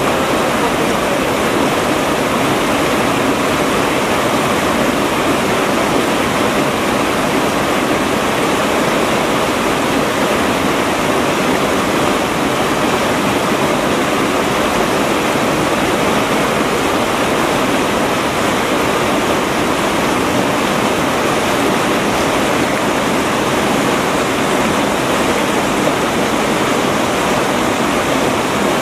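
River water rushing over stones in a shallow, rocky riverbed, a loud, steady rush that does not change.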